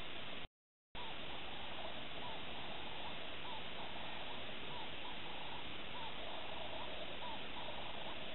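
An animal's short call repeated at a steady pace, roughly three times every two seconds, over a constant hiss. The sound drops out completely for about half a second just after the start.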